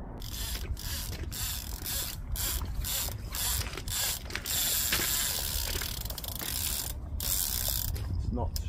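Fishing reel being wound in to take up line after a cast: a rhythmic mechanical whirr pulsing about three times a second, going steadier for a couple of seconds past the middle.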